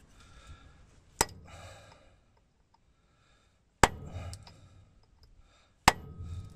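Three sharp clicks or taps, the second about two and a half seconds after the first and the third two seconds later, each followed by a brief scuffing rustle, amid hand work with a paint marker on a truck driveshaft's steel flange.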